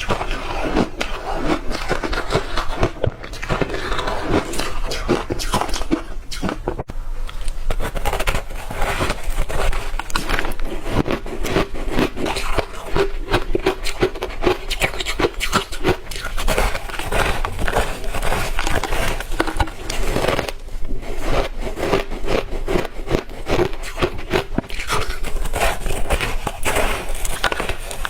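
Close-miked crunching of hard ice chunks being bitten and chewed: a continuous run of rapid, crackling crunches with brief let-ups, such as around seven and twenty-one seconds in.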